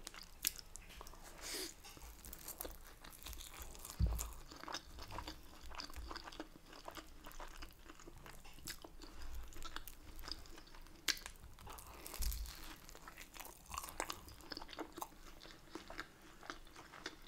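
A person chewing a mouthful of sausage, mash and Yorkshire pudding close to the microphone: quiet, irregular wet clicks and soft crunches, with a few dull thumps, the strongest about four seconds in.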